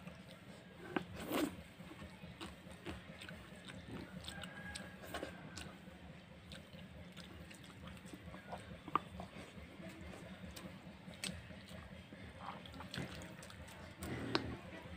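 Eating by hand: fingers scooping rice soaked in water from a steel bowl, and chewing, with wet smacking sounds and scattered short clicks. The loudest clicks come about a second and a half in, at about nine seconds, and near the end. A steady low hum runs underneath.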